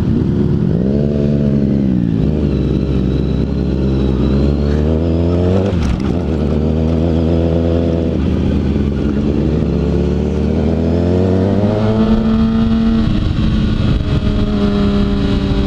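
Kawasaki Ninja ZX-6R sport bike's inline-four engine accelerating through the gears under way, its pitch climbing and then dropping at each upshift. From about twelve seconds in it holds a steadier, higher note.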